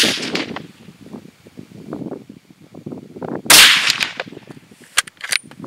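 A single rifle shot from a Zastava M85 Mini Mauser in 7.62x39mm about three and a half seconds in, with a sharp crack that rings off over about half a second: the salvaged primer has fired. A few sharp clicks follow near the end.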